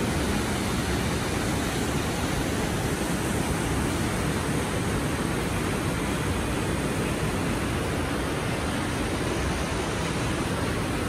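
Shell Falls, a waterfall pouring through a rock gorge, rushing steadily: an even, unbroken noise with no separate events.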